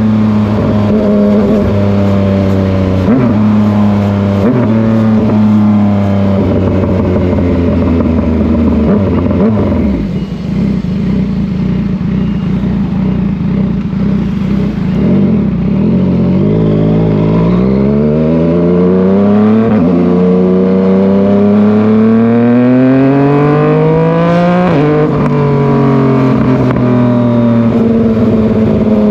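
Yamaha MT-09 inline-three motorcycle engine pulling hard through the gears, its note climbing and dropping sharply at each upshift. About a third of the way in the throttle closes and the exhaust crackles and pops on the overrun for several seconds, then the engine climbs through the gears again.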